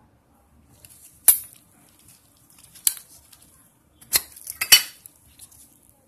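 Zippo windproof lighter being handled: its metal lid and case clink and the chrome insert is slid out of the case, giving four sharp metallic clicks with light scraping between them.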